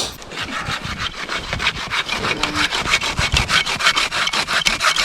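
Hand saw cutting into a pine tree, with quick, even back-and-forth strokes that start just after the beginning and keep a steady rhythm.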